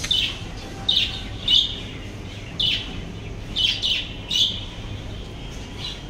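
Pet budgerigars in a wire cage chirping: about eight short, high chirps at an uneven pace, over a low steady background hum.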